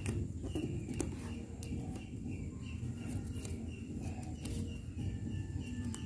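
Sheet of origami paper being creased and pressed flat by hand, in a few short crackles and taps, against a steady background of birds chirping.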